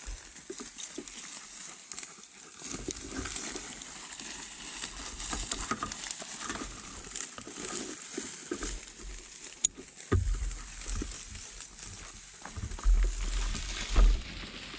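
Mountain bike rolling along a dirt track: a steady crunch and patter of tyres on grit, with a few low thuds about ten seconds in and near the end.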